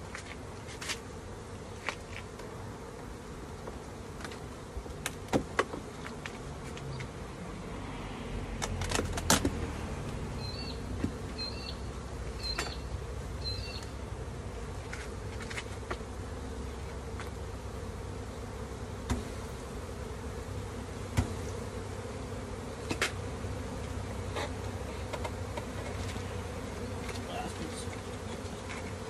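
Honeybees buzzing in a steady, dense hum around an open hive, broken by occasional sharp clicks and knocks. A few short high chirps come a little before the middle.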